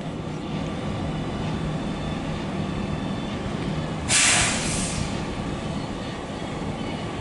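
Train running through a railway station with a steady low rumble; about four seconds in, a sudden loud burst of air hiss lasting under a second, a release of compressed air from the train's brakes.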